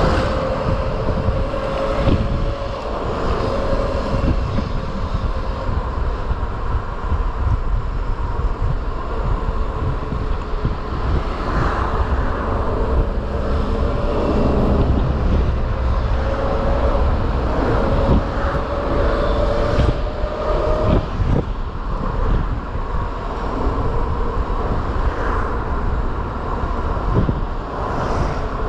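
Ride on an electric moped: a steady rumble of wind and road noise, with a thin whine that rises slightly in pitch in several stretches as the moped speeds up, and a few short knocks over bumps.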